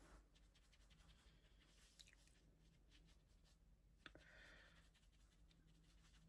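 Near silence: room tone with faint scratching and two light clicks, about two seconds in and about four seconds in.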